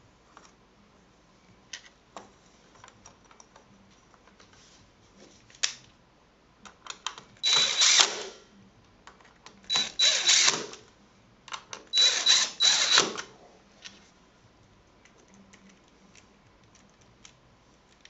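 Cordless drill-driver driving screws through a metal mounting plate into a door jamb, in three short runs of about a second each around the middle, with small clicks and handling taps in between.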